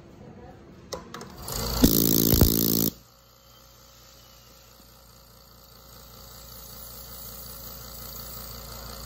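Oxygen concentrator fitted with a new quiet compressor, running. About a second and a half in, a loud hiss lasts about a second and a half and cuts off sharply. It gives way to a quiet, steady hum that slowly grows louder.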